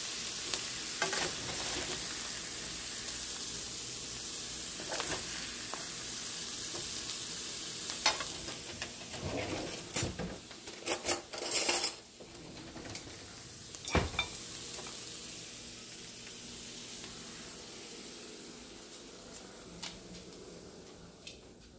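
Beef, shrimp and vegetables sizzling in a wok, stirred with spatulas that scrape and tap against the pan. A burst of louder clattering comes about ten to twelve seconds in, and the sizzle fades near the end.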